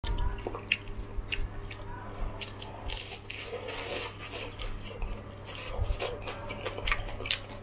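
Crunching and chewing of crispy battered fried shrimp: irregular crisp crackles throughout, over a steady low hum.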